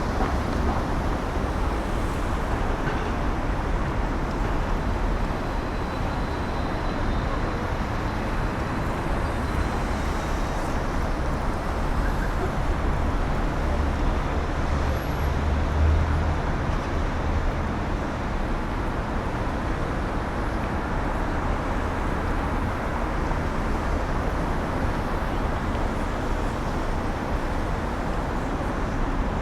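Continuous city street ambience: a steady wash of road traffic with a low rumble that swells for a few seconds midway, as of a heavier vehicle passing.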